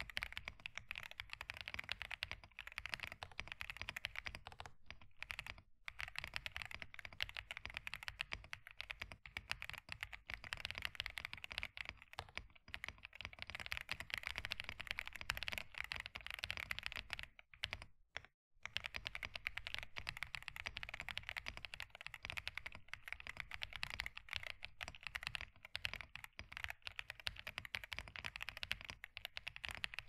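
Royal Kludge RK M65 mechanical keyboard in stock form, with its factory foam and lubed switches and stabilizers, typed on fast: a dense, continuous stream of keystrokes with one short break a little past halfway.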